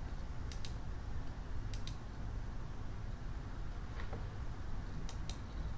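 Computer mouse clicking a few times, mostly in quick pairs, over a low steady hum.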